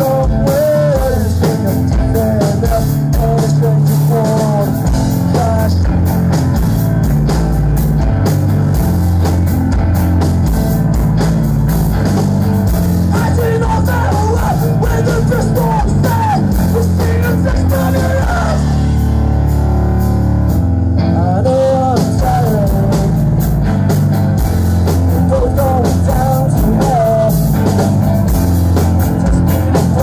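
Post-hardcore band playing live and loud, heard from within the crowd: distorted electric guitars, bass and drums with vocals. About two-thirds of the way through, the drums drop out for a couple of seconds, leaving a low sustained chord, then the full band comes back in.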